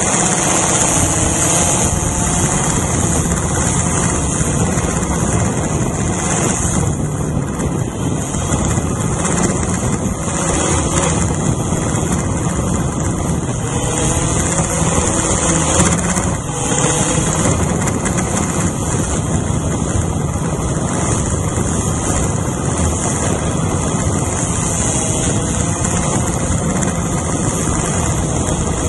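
Multirotor drone's electric motors and propellers whirring steadily, heard close from the camera mounted on the drone, with a hiss over it and a motor pitch that wavers a little as it flies.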